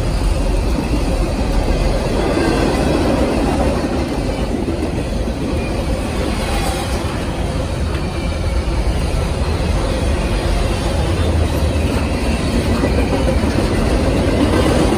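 Double-stack intermodal freight train's container well cars rolling past: a steady, loud rumble of steel wheels on the rails.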